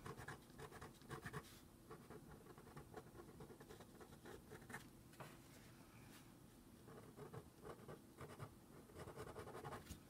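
Faint scratching of a Micron fineliner pen nib drawing short wavy strokes on watercolour paper, coming and going irregularly.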